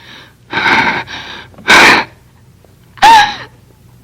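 A young woman crying desperately: ragged sobbing breaths, a sharp loud gasp, then a short high wailing sob that falls in pitch about three seconds in.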